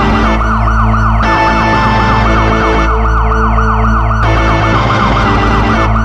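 Police-siren ringtone: an electronic siren warbling quickly up and down, about five sweeps a second, over a music backing with a steady bass.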